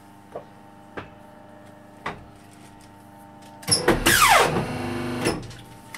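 Wohlenberg guillotine paper cutter running with a steady motor hum, a few light knocks as the paper stack is pushed into place, then a loud cutting stroke about two-thirds of the way in as the clamp and blade come down through the stack, with a falling whine, lasting about a second and a half.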